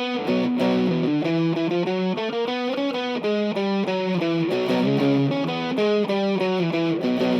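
Jackson Rhoads JS32T electric guitar on its bridge pickup, overdriven through a Caline overdrive pedal into a Marshall Origin 50 amp, playing a continuous riff of chords and single notes that change several times a second.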